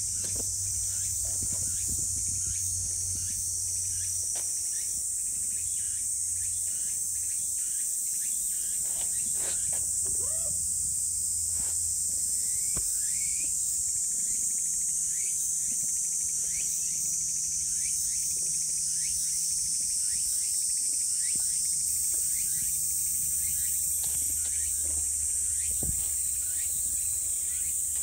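Steady, high-pitched chorus of insects, with scattered short chirps.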